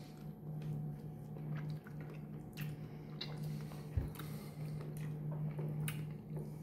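A person eating close to the microphone: chewing and wet mouth sounds with scattered small clicks, over a steady low hum. There is one sharp thump about four seconds in.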